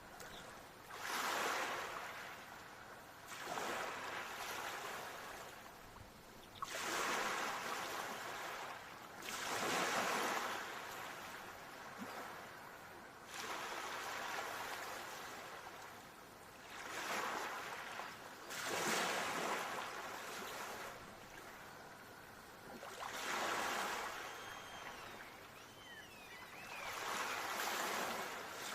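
Ocean surf: waves breaking and washing in one after another, each a rushing swell that rises and fades every two to four seconds.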